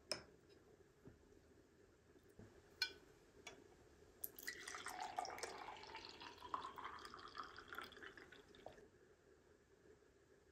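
Buttermilk poured from a glass jug into a drinking glass, a pour of about four seconds whose pitch rises as the glass fills. Before it come a couple of light clinks of a spoon against a dish.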